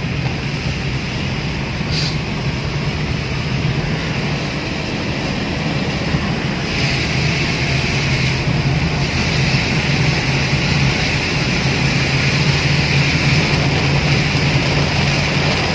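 Heavy rain drumming on a moving car's roof and windshield, heard from inside the cabin, over the steady hum of the engine and tyres on the wet road. The rain's hiss grows louder about seven seconds in, and there is one sharp click about two seconds in.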